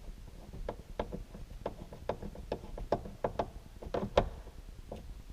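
Irregular small clicks and taps, two or three a second, from a hand screwdriver and hard plastic trim as a screw is driven into a car's sun visor mount. The loudest click comes about four seconds in.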